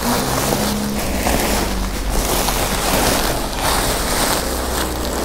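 Black plastic bags and a woven plastic sack rustling and crinkling as they are pulled open and rummaged through by hand, a continuous, uneven rustle.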